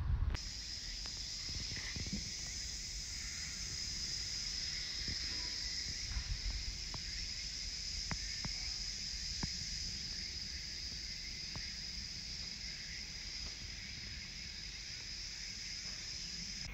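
Insects calling in a steady, continuous high-pitched drone, over a low rumble and a few faint clicks.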